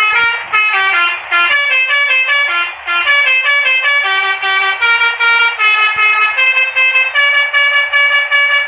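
Telolet horn, the Indonesian multi-trumpet bus air horn, playing a quick melody of short stepped notes, several a second, without a break.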